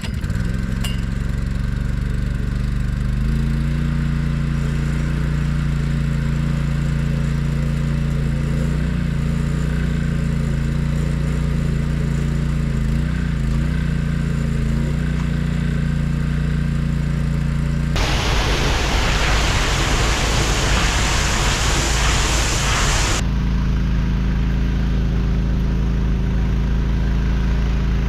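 An engine running steadily at an even pitch, with a loud rushing hiss for about five seconds over it near the end.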